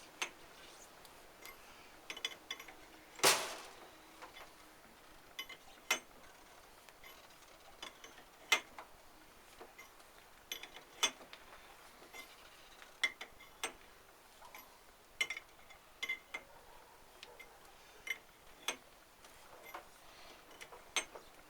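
Scattered sharp metallic clicks and taps as the steel ring nut is worked down the threads of a Citroen 2CV driveshaft output hub, irregularly spaced, with one louder knock about three seconds in.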